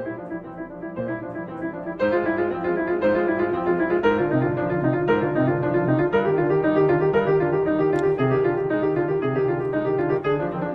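Background piano music, a steady run of notes that gets louder about two seconds in.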